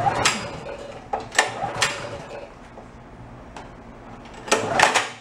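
Recoil pull-starter on a Honda GX engine being yanked several times; the engine turns over with sharp clacks but does not catch and run. The owner suspects an intermittent spark problem.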